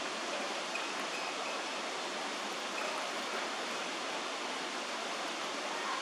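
Steady rush of running stream water.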